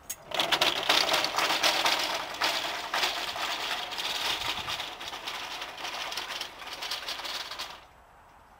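A CC Container, a metal-framed shelved trolley on castors, rattling and clattering loudly as it is pushed over brick paving. This is the ordinary container that the low-noise CC Euro Trolley is compared against. The rattle stops suddenly near the end as the trolley comes to rest.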